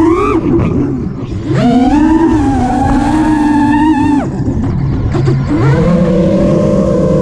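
Brushless motors and propellers of an Armattan Marmotte FPV quadcopter on a 4S battery, whining with throttle. The pitch surges and cuts back: a rise at the start, a drop half a second in, a sharp climb about a second and a half in that holds, a fall near four seconds, then another rise that holds near the end.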